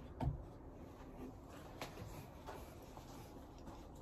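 Faint rustling with one soft knock just after the start and a few scattered quiet clicks and scuffs, from someone moving beside the microphone. No shot is fired.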